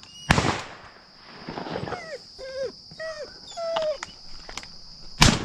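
Two shotgun blasts, one just after the start and one near the end. Between them a hunting dog whines in about six short cries that rise and fall in pitch.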